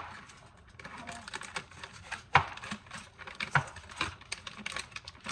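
Irregular light clicks and knocks of things being handled in a kitchen, with a sharper knock about two and a half seconds in.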